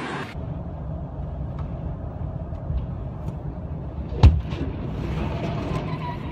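Steady low road rumble of a moving vehicle, with one loud crash about four seconds in as a truck ahead smashes and breaks apart. A few lighter knocks of flying debris follow.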